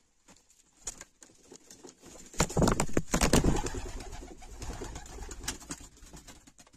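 Racing pigeons at close range: a run of quick flutters and clicks with some cooing. The flutters are loudest from about two and a half to four seconds in, then thin out.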